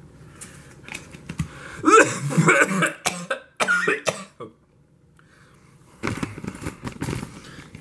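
A man coughing and clearing his throat about two seconds in. This is followed by a few sharp clicks and some rustling as a small plastic container with a snap-on lid is handled.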